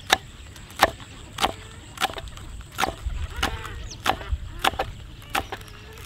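A knife chopping vegetables in steady, sharp strokes, about three every two seconds.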